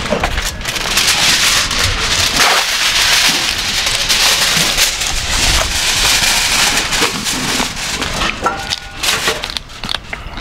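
Dense crinkling and crunching from handling foil-wrapped spit-roasted pork and breaking its crispy skin close to the mic, easing off over the last couple of seconds.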